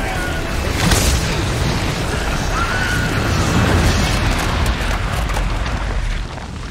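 Film action sound effects: a loud boom about a second in over a continuous heavy rumble, which swells again later and drops near the end, with orchestral score underneath.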